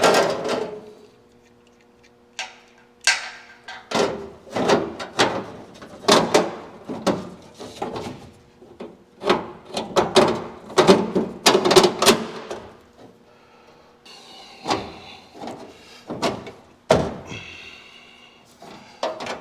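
A steel sheet-metal cross rail assembly being handled and set into place, clanking and knocking against the car body. A strike at the start leaves the metal ringing for a few seconds, followed by many irregular knocks and clanks.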